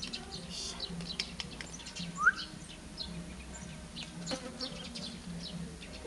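Scattered short, high-pitched chirps, with one louder rising squeak about two seconds in.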